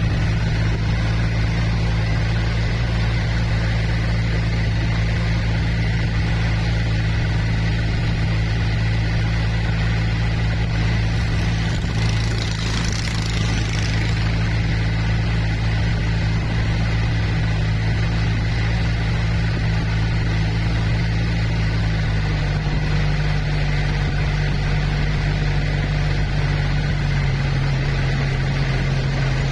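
Engine of a river boat running steadily, heard from on board, with a low drone whose pitch shifts slightly about 22 seconds in. A brief hiss comes through about 12 seconds in.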